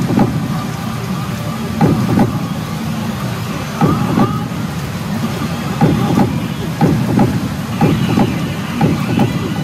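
Pachinko parlour din: the steady roar of a hall full of machines and steel balls, with short thumps from the machine's sound effects every second or two, often in pairs.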